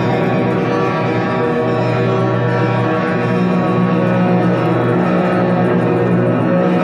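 Sustained ambient music with layered held tones and a plucked-string, guitar-like texture, dark and drone-like.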